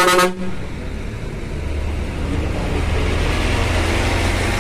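A short horn blast from the Scania K360iB coach, the crew's greeting, then the coach's diesel engine running and growing louder as the bus pulls away past.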